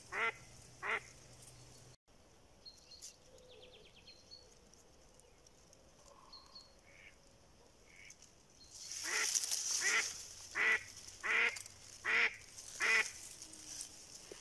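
Hen duck working as a live decoy, quacking: two quacks at the start, then a loud calling run of six evenly spaced quacks from about nine seconds in.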